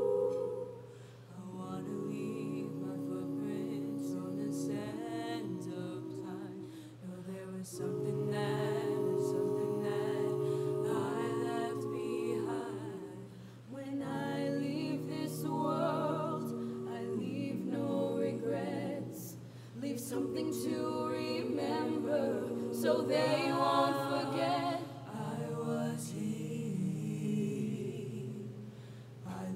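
A small mixed-voice student concert choir singing a cappella, in long held phrases with brief breaks between them.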